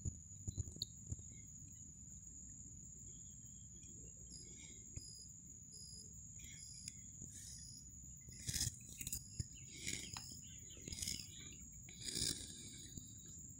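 Steady high-pitched drone of insects, with a bird's short repeated chirps over it. Several louder brief noisy bursts come in the second half.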